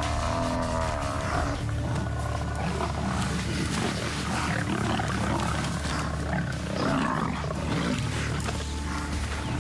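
Lions growling as they grapple with a buffalo, over background music with a steady low drone.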